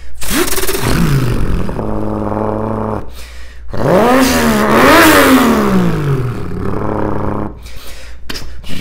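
A man's voice imitating a turbocharged Toyota MkIII Supra with a 1JZ-GTE engine: a quick rev that drops away, a steady idle-like drone, then after a short break a longer rev that rises and falls with a hiss over the top. A few short pops come near the end.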